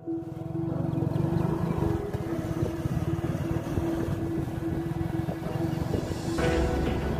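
Truck engine running steadily, with a held music tone underneath.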